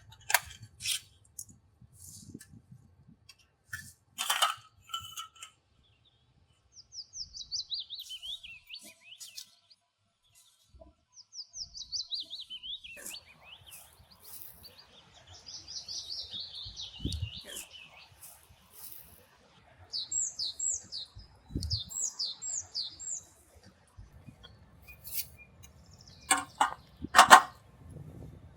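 Wild birds singing: descending trilled phrases a few times, then a quick series of high chirps. Scattered sharp clicks and knocks sound in between, the loudest near the end.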